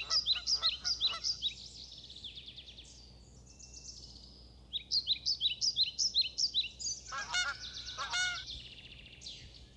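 Wild birds calling in the open countryside: rapid, high chirping song from small birds, with two short runs of lower, harsher repeated calls about seven and eight seconds in.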